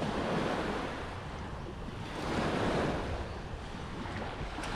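Small waves lapping and washing up on a sandy shore, one wash swelling about halfway through and easing off, with some wind on the microphone.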